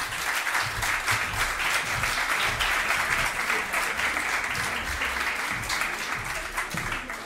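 Audience applauding, a steady dense clapping that thins out and fades near the end.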